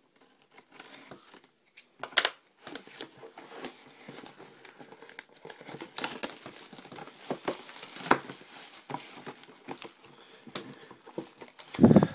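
Plastic shrink-wrap being torn and peeled off a cardboard trading-card box, crinkling and crackling irregularly, with a sharp snap about two seconds in and a louder rustle near the end.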